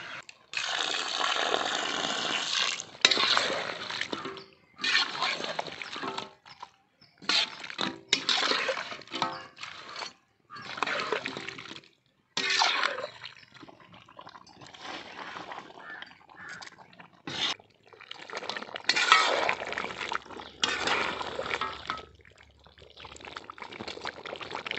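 Chicken feet bubbling and splashing in a watery sauce in a large wok while a spatula stirs them. The sound comes in short stretches broken by sudden silences.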